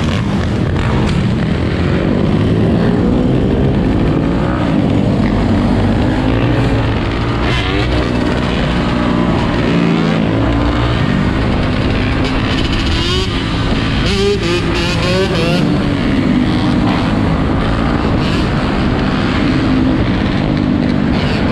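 Several dirt bike engines running and revving together, their pitch climbing and dropping again and again as the riders open and close the throttle.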